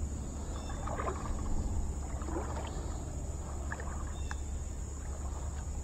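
Creek-side ambience: a steady high insect drone over a low rumble, with faint water sloshing, small rustles and one sharp click a little past the middle.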